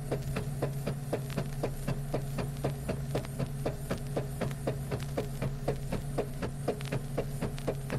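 Freight elevator running: a steady motor hum with an even clatter of about four clicks a second from its machinery.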